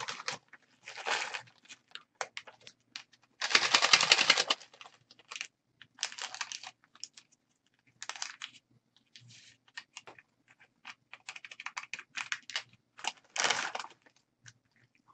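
Small paper seasoning packets for instant ramyeon being torn open, crinkled and shaken out over a bowl of soaking noodles, in short rustling bursts with scattered clicks and taps. The longest and loudest burst of tearing and rustling comes about four seconds in.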